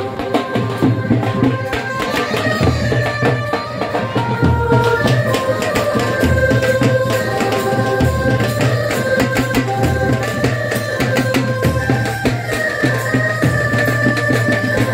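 Music with a steady beat and a melody over it, the bass repeating about every two seconds.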